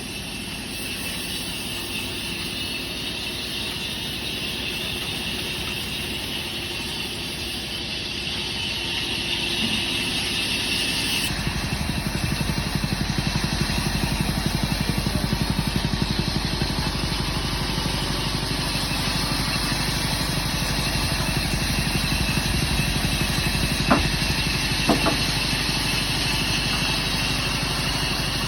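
Workshop machinery running steadily, its sound changing abruptly and getting heavier in the low end about 11 seconds in. Two sharp knocks come near the end, about a second apart.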